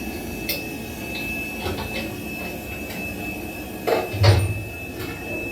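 A steady low hum with a thin high whine inside the submarine's steel compartment, scattered light clicks and knocks, and a louder heavy thump about four seconds in.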